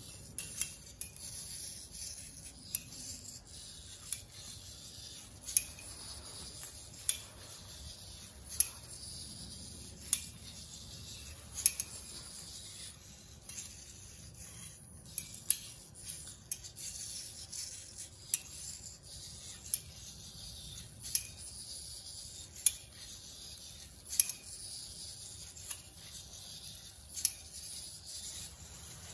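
Small eight-servo biped robot walking on a stone-tiled floor: a sharp click as a foot plate lands about every second and a half, with a faint whirring of its servos between steps.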